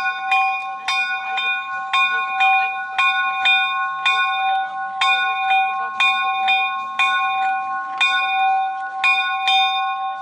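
A rope-pulled bell in a wooden bell frame ringing, swung steadily so that the clapper strikes about twice a second, each stroke ringing on into the next.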